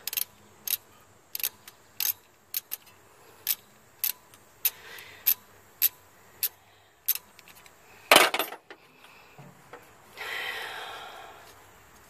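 Socket ratchet clicking in short, even strokes, a little under two a second, as it backs out an alternator mounting bolt that has just started to loosen. About eight seconds in comes a single loud metal clank, then a brief rustling scrape.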